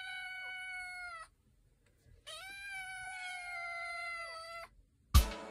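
A domestic shorthair kitten meowing twice, each meow long and held at a steady pitch. Music starts with a loud note near the end.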